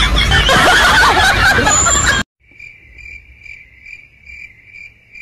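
A loud, dense burst of noise and voices cuts off abruptly about two seconds in. Then a cricket chirps steadily, about three chirps a second, the stock crickets sound effect for an awkward silence.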